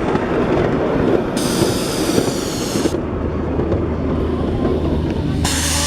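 Miniature passenger-carrying steam train running along its track, a steady rumble with irregular clicks. Two bursts of high hiss cut in, about a second and a half in and again near the end, and a low hum joins halfway through.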